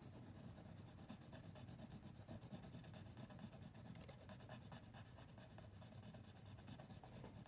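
Faint scratching of drawing and colouring on paper, in small irregular strokes, over a low steady room hum.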